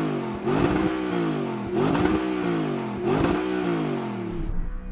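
Audi V8 engine revved in repeated blips of the throttle, each rising and falling back, four times, before settling back to idle near the end.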